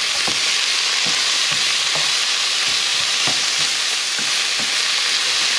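Minced meat, bacon and onions sizzling in a non-stick frying pan, with a wooden spatula stirring and scraping through them in repeated strokes.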